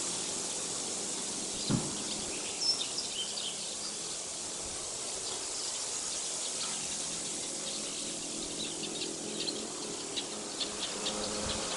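Small birds chirping in short, scattered calls over a steady outdoor hiss, with one brief low thump about two seconds in.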